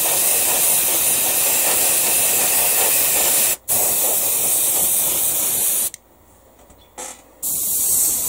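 Airbrush hissing steadily as it sprays paint onto a plastic model. The hiss cuts off for a moment a little over three seconds in, then stops again for about a second and a half near six seconds, with one short spurt in the gap, before starting again.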